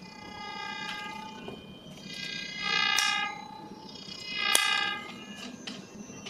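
Background music: a melody of long held, reedy notes, with a louder note swelling about three seconds in and again near four and a half seconds.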